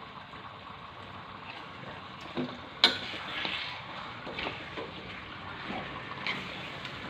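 Chicken pieces sizzling in fried spice paste in a pot before any water is added, a steady hiss with scattered small ticks. A single sharp clack about three seconds in is the loudest sound.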